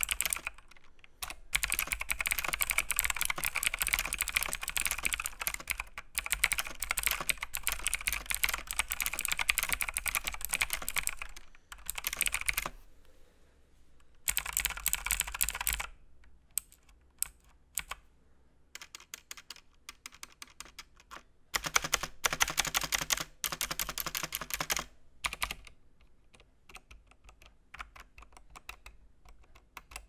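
Typing on a Bastron MK75 mechanical keyboard with clicky Kai Hong blue switches, a Chinese clone of Cherry MX Blue: loud, clicky key presses. Fast continuous typing for the first ten seconds or so, then scattered single key presses broken by a few short runs of quick typing.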